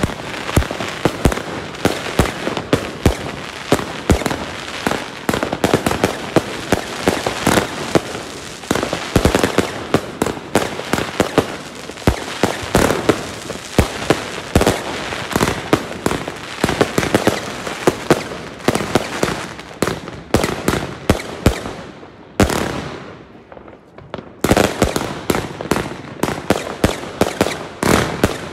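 Fireworks going off all around: a dense barrage of overlapping bangs and crackles from shells and firecrackers, one after another. The barrage thins out briefly a little over twenty seconds in, then picks up again.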